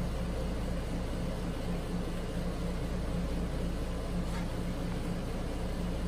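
A steady low hum with a faintly pulsing low tone, like a machine or appliance running in the room.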